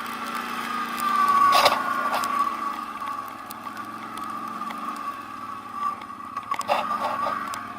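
ATV engine running under way with a steady high whine, with scattered knocks and clatter, the loudest about a second and a half in and a cluster near the end.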